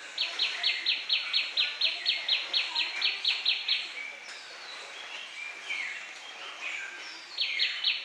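Tailorbird singing: a fast run of loud, identical sharp notes, about five a second, for about three and a half seconds. After a pause filled with softer bird calls, the same rapid run starts again near the end.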